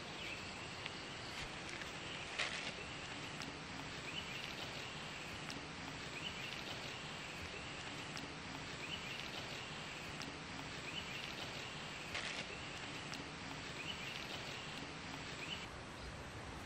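Outdoor forest ambience: a steady hiss with a short, high chirping call repeating about every second and a half, and a couple of sharp clicks.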